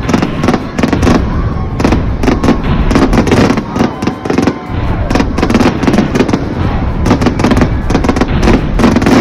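Fireworks display: aerial shells bursting overhead in a rapid, unbroken string of loud bangs.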